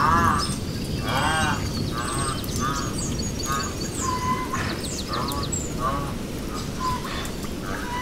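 An animal giving short calls about once a second, each rising and falling in pitch, with small birds chirping high above and a steady low background rumble.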